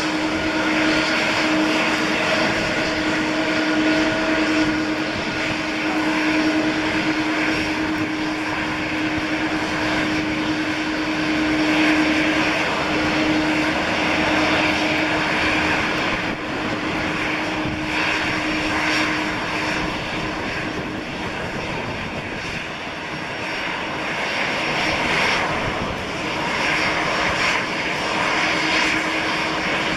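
Boeing 777-200ER's twin jet engines running at taxi power as the airliner rolls by. A steady jet noise carries a constant low hum that fades somewhat midway and grows again near the end.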